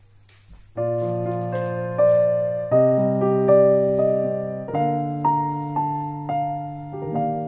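Slow background piano music: soft sustained chords and single melody notes, each struck and left to fade, starting about a second in.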